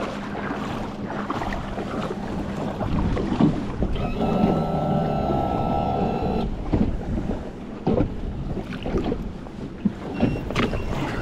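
Wind buffeting the microphone, with scattered knocks and bumps as the inflatable boat's seat and tube are handled. Midway a steady tone with overtones sounds for a couple of seconds.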